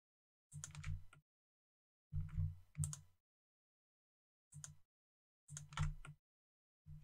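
Short bursts of computer mouse and keyboard clicks as edge loops are selected with Shift+Alt+click, about six in all, each cut off sharply into dead silence.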